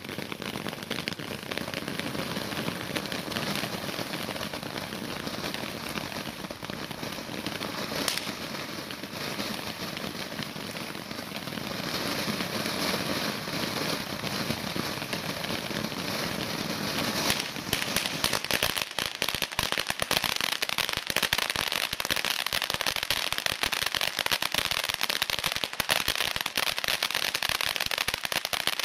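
Sirius fountain-battery firework burning: a steady spraying hiss, turning into dense crackling with many sharp pops from a little past the middle.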